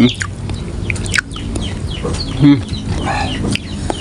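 Chickens clucking, with one loud short call about two and a half seconds in, and a few sharp clicks.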